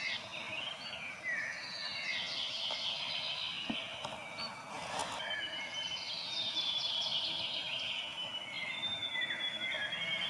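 Grey warbler (riroriro) singing: a continuous run of high, thin, wavering notes that slide up and down.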